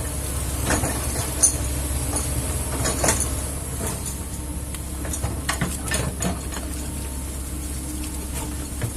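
Kobelco excavator's diesel engine running steadily at a low hum, with scattered sharp knocks and cracks from the machine working, loudest about a second and a half in and around three seconds.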